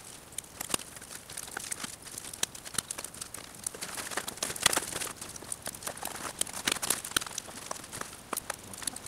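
Large curled sheets of birch bark being handled and stood upright, crackling and rustling with many sharp clicks and knocks, busiest around the middle.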